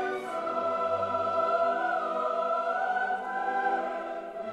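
Background music: classical vocal music, sung in long held notes that change every second or so.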